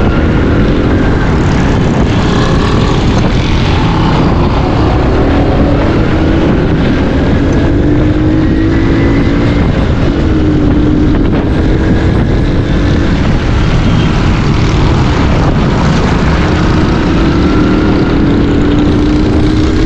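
Motorcycle engine running while riding in traffic, its pitch slowly rising and falling with the throttle, under a loud, steady rumble of wind and road noise.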